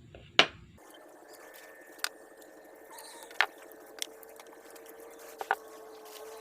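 Sharp clicks and taps of small carburetor parts and tools being handled, about six over a few seconds, the loudest about half a second in, over a faint steady drone.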